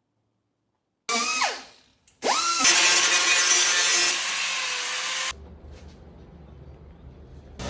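A handheld power tool, briefly triggered and spinning down, then spun up again and run with a loud grinding hiss for about three seconds before cutting off suddenly, leaving a low rumble.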